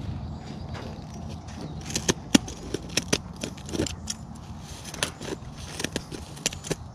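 Scissors snipping through a chicken's flight feathers as its wing is clipped: a quick, irregular series of sharp snips.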